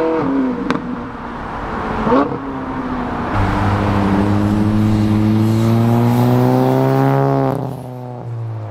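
Ferrari engine pulling away in the first two seconds, then a Ford Mustang's engine under hard acceleration. Its note climbs steadily for about four seconds before dropping off near the end as it lifts or shifts.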